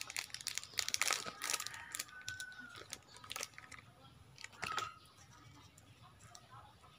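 Plastic wrapper of a packaged banana bar crinkling and crackling as it is peeled open and handled: a dense run of sharp crackles for the first three and a half seconds, then a few more about two-thirds of the way in.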